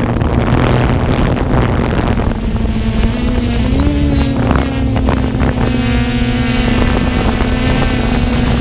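Multirotor drone's electric motors and propellers running with a steady hum, the pitch wavering briefly about four seconds in.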